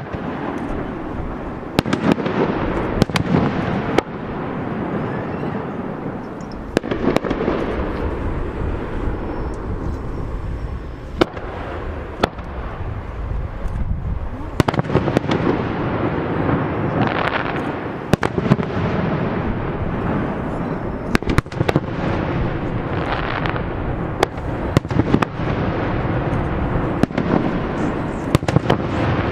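Fireworks display: a rapid, irregular series of sharp bangs from bursting shells over a continuous low rumble, with stretches of crackling about halfway through and again near the end.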